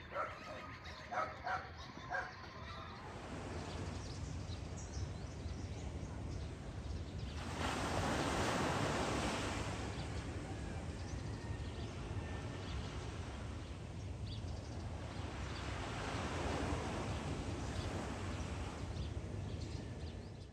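Seaside wind and waves, a steady rushing with a deep rumble that swells twice, about eight seconds in and again near the end. A dog barks a few times in the first two seconds.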